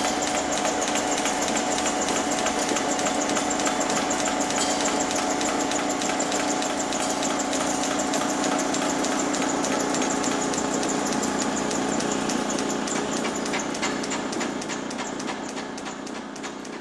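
Belt-driven copying lathe running, its 1 HP electric motor and flat drive belt giving a steady hum with a fast, even ticking, fading away over the last few seconds.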